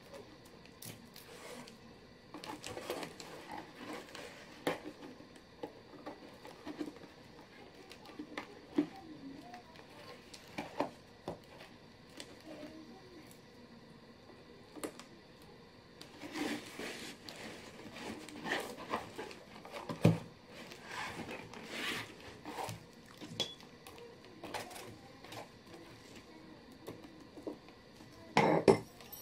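Hands handling a stiff leather tube bag and fitting metal rivets through its leather handle straps: scattered small clicks and leather rubbing, with a few sharper knocks, the loudest about two-thirds of the way through.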